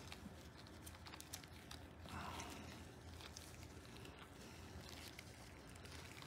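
Near silence: a few faint clicks and light handling noises from small engine parts being moved on the bench, over a low steady hum.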